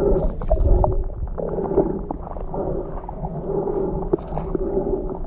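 Muffled underwater noise picked up through a submerged camera's waterproof housing as a snorkeler swims: a low rumble with a hum-like tone that swells and fades about once a second, and scattered small clicks.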